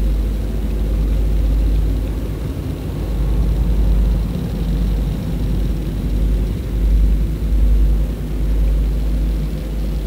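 Boat motor running steadily, heard underwater through a waterproof camera housing: a low, unbroken rumble with water rushing over the housing.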